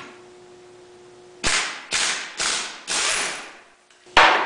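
Impact wrench hammering in four short rattling bursts about half a second apart, then a louder burst near the end, spinning loose the secondary clutch's centre nut on a Yamaha Big Bear 350 engine.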